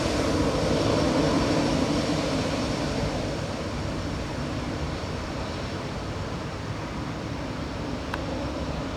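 Airbus A319 jet engines running, heard as a steady rumble and hiss with a faint high whine, growing quieter about three seconds in.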